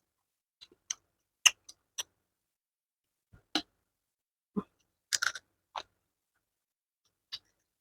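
Close-up eating sounds: crab being chewed, with about a dozen sharp, short crunches and mouth clicks coming irregularly with quiet gaps between them.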